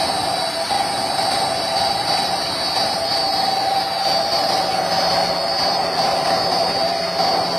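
Large electric motor of a solar-powered tubewell running and driving the vertical shaft of the well pump: a steady mechanical whine over a rushing noise.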